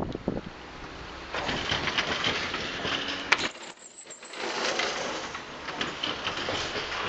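Aluminium-framed glass sliding door rattling along its track as it is slid, with a sharp clack about three seconds in; after a short lull the rattling starts again.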